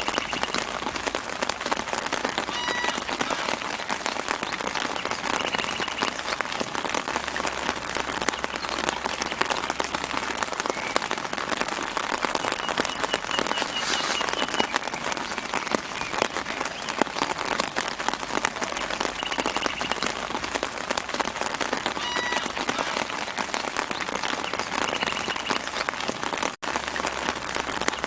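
Steady light rain falling on leaves, with faint bird chirps in the background every few seconds. The rain cuts out for a split second near the end.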